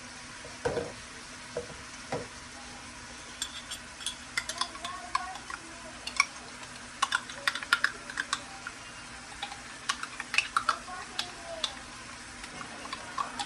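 A spoon stirring chicken curry in a pot over a steady sizzle. There are a few soft knocks at first, then from about a third of the way in a quick run of sharp clicks and scrapes as the spoon hits the pot.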